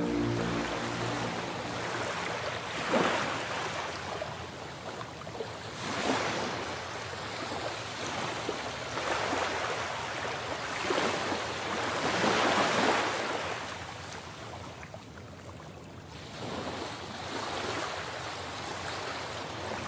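Sea waves washing onto a shallow shore, a steady rush that swells and fades every three to four seconds.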